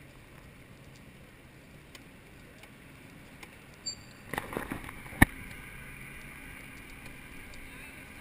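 Steady low rumble of tyres and wind heard from a bicycle-mounted camera rolling along a city street, with a quick cluster of rattles and one sharp loud knock about four to five seconds in.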